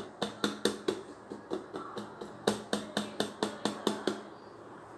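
A hand tapping the bottom of an upturned metal cake tin in a quick, even run of knocks, about five a second, stopping about four seconds in. The taps loosen the baked cake so it drops out onto the plate beneath.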